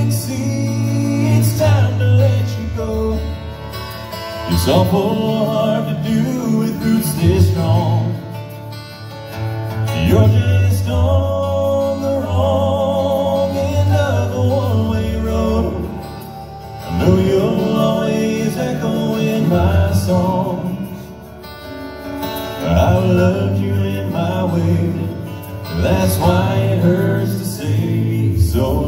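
Male a cappella group singing a country song in close harmony, with a strummed acoustic guitar and beatboxed percussion. The music swells and eases in phrases of a few seconds.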